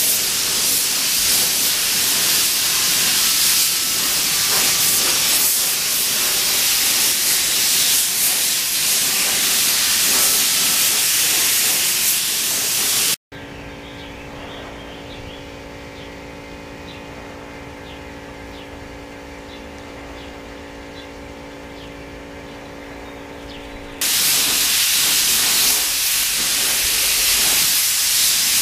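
Compressed-air spray gun hissing steadily as it sprays clear coat, for about 13 s. After a sudden cut it gives way to a much quieter steady hum with a few faint ticks. The loud spray hiss starts again near the end.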